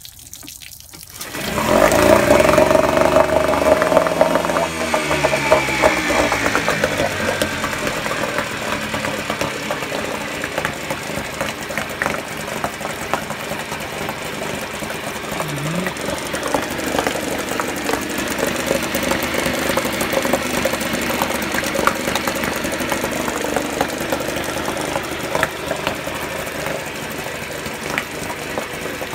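1985 Mariner 4 hp two-stroke outboard pull-started: it catches about a second and a half in, its revs fall over the next few seconds, and it settles into a steady idle. It starts and runs after a carburettor clean and a new water-pump impeller.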